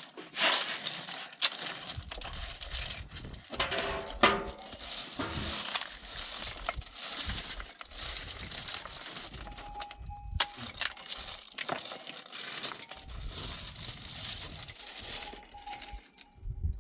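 Repeated sharp clinks and clatters of hard objects knocking against each other.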